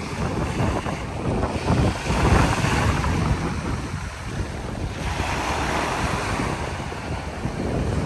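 Small waves breaking and washing up a sandy beach, the hiss of the surf swelling and ebbing every few seconds, with wind buffeting the microphone.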